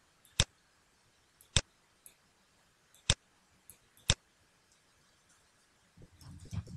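Four sharp computer-mouse clicks about a second apart, then about six seconds in a rapid clatter of keyboard typing begins.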